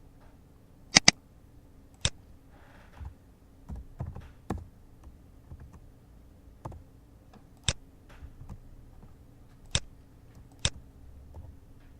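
Computer mouse clicking: a quick double click about a second in, then single clicks every couple of seconds, over a faint steady low hum.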